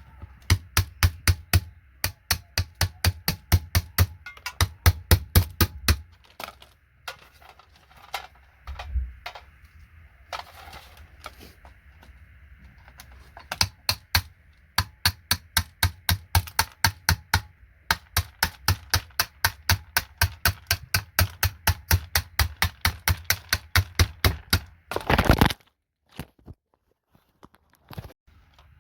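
Plastic keycaps on a large vintage keyboard being pried or snapped off one after another, a sharp click with each, in quick runs of about three to four a second broken by short pauses. A brief louder rattle near the end.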